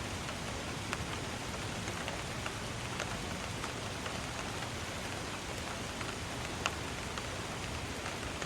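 Steady rain falling, a continuous hiss with scattered single drops ticking sharply on a surface, one drop louder than the rest a little past two-thirds of the way through.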